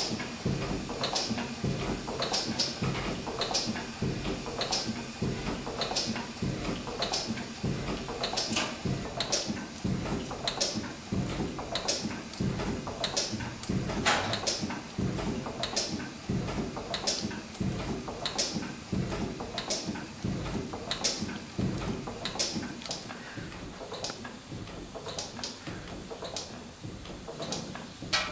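A 1923 R. Wolf portable steam engine (Lokomobile) running slowly and evenly, its moving parts clicking in a steady rhythm a little over once a second over a low, regular beat.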